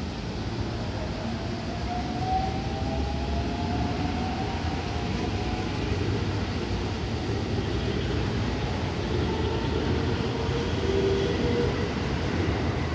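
JR West 223 series 2000-subseries electric multiple unit pulling out and accelerating past the platform: a steady rumble of wheels on rail, with the motors' whine rising in pitch early on and again as a later car passes.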